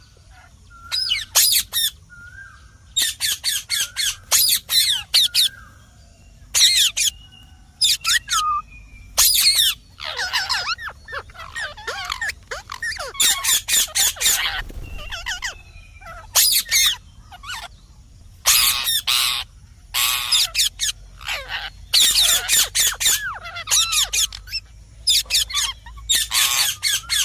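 Indian ringneck parakeet giving loud, harsh screeching calls in rapid clusters of several at a time, with softer gliding whistles in the gaps.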